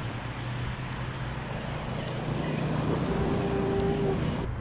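Wind on the microphone and sea water around a wading angler, with a spinning reel being cranked to retrieve the line. About three seconds in, a steady tone sounds for about a second.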